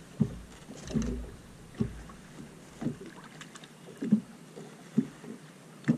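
Water slapping against the side of a bass boat in short, sharp knocks, about one a second, seven in all, with a low rumble under the first few.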